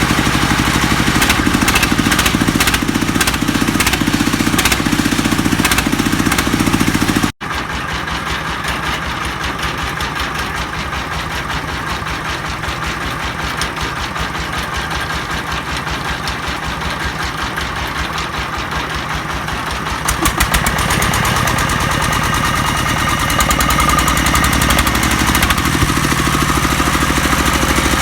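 Jangfa D30 single-cylinder diesel engine running with a fast, even knock. The sound breaks off abruptly about seven seconds in, comes back lighter, and grows fuller again in the last third.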